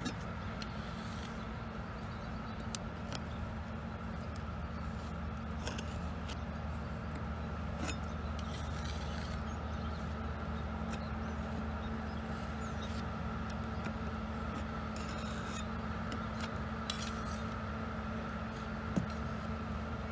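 Metal putty knife scraping and pressing thick two-part wood epoxy putty into a rotted wooden window sill, with scattered light scrapes and clicks and a sharper click near the end. Under it runs a steady machine hum.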